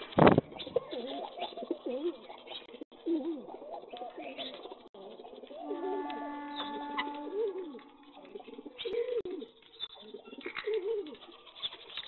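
A flock of rock pigeons cooing: many overlapping low, rolling coos. There is one loud sharp thump just after the start, and a steady held tone of about a second and a half around the middle.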